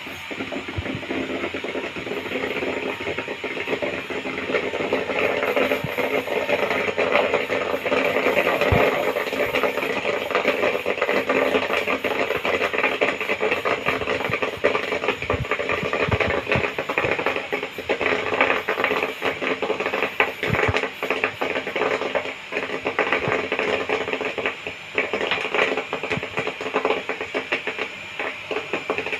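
Popcorn popping in the kettle of a 12-volt popcorn machine: a dense, continuous crackle of kernels bursting over a steady hiss.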